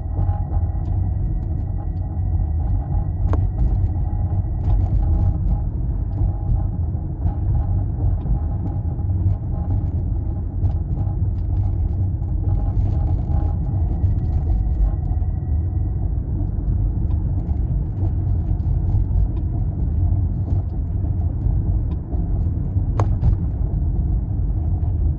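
Steady low road and drivetrain rumble of a Toyota Prius Prime on the move, heard inside the car. A faint high steady whine comes and goes, and scattered light ticks and clicks sound over it, two of them sharper, about three seconds in and near the end.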